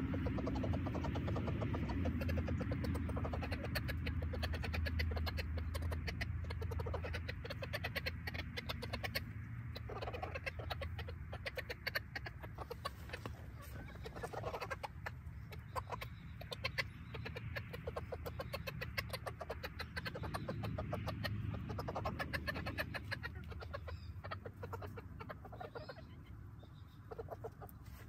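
Backyard chickens clucking over a steady rustle and many quick clicks and ticks, fading somewhat toward the end.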